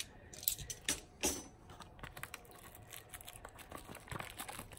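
Hands opening a cardboard trading-card box and its wrapping: a scattered series of short clicks and light crinkling rustles.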